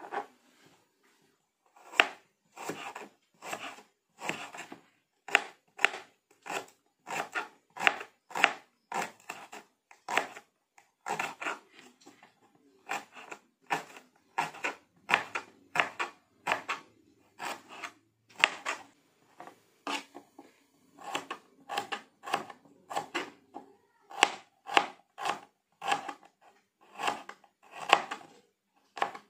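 Kitchen knife slicing shallots on a cutting board, with steady, unhurried knocks of the blade on the board about two a second, starting about two seconds in.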